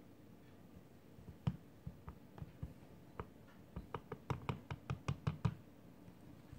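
Light taps on a small metal mesh strainer as it is tapped to sift mica powder over soap. A few scattered taps come first, then a quick run of about a dozen taps a little past halfway.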